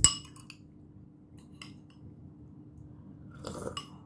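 A metal spoon clinks sharply against a glass soup bowl with a short ring, followed by a few faint spoon taps. Near the end comes a brief sip of soup from the spoon.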